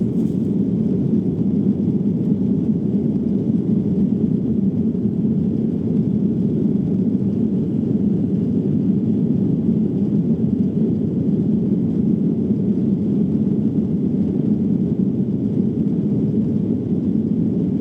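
Steady low rumble of jet engines and airflow heard inside an airliner's cabin in flight.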